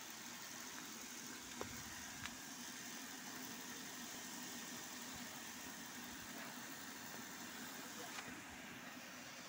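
Steady running hum of machinery, like an engine idling, under an even hiss, with a few faint clicks.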